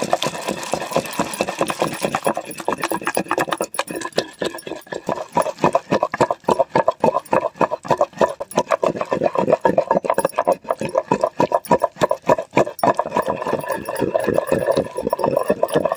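Wooden pestle pounding tomatoes into chilli paste in a stone mortar: quick, steady, repeated thuds as the tomato chutney is mashed to a pulp.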